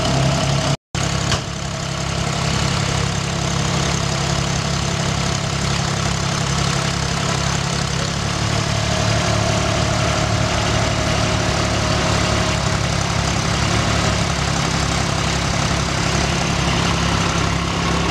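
Tour bus engine idling steadily close by, a low even hum. The sound cuts out for an instant about a second in.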